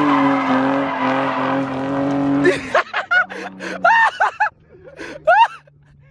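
BMW E30 engine running steadily under throttle with tyres squealing as the car drifts; the sound cuts off abruptly about two and a half seconds in. Short voice sounds follow over a faint, far-off engine hum.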